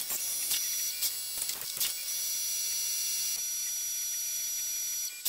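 Tormach 1100MX CNC mill running, with a steady high-pitched whine, a few clicks and a tone that falls slowly in pitch. It ends with a single sharp click.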